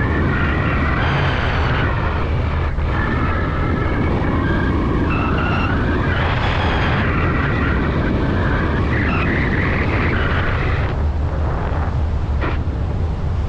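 Hang glider in flight: airflow rushing over the wing-mounted camera's microphone, a loud, steady wind rumble.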